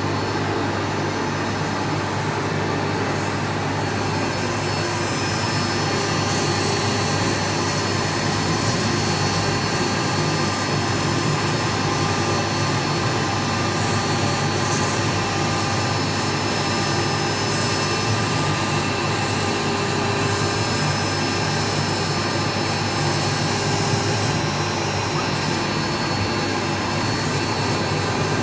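UTECH CNC router's spindle running at speed while its bit cuts along printed lettering in a white board: a steady whine with several high tones over a continuous cutting noise.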